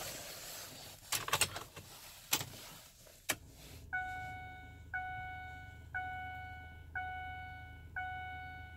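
Keys rattle and click in the ignition of a 2009 Ford F350's cab, with a sharp click about three seconds in as the key is turned to run. A dashboard warning chime then dings about once a second, six times, over a faint low hum, while the glow plugs warm and the engine is not yet started.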